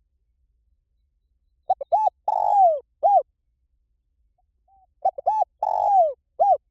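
Spotted dove cooing in two phrases. Each phrase is a few quick short coos, then one long coo that falls in pitch, then a short closing coo.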